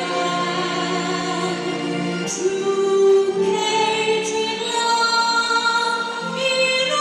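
A national anthem sung by a choir with accompaniment, in slow, long-held chords.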